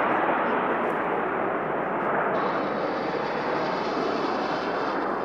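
Fighter jet's engine noise, a steady jet rumble slowly fading as the jet flies away, with a faint high whine coming in about two seconds in.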